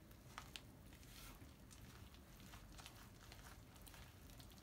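Faint squishing and scraping of a spatula stirring thick, lumpy cake batter in a plastic mixing bowl, with soft irregular ticks.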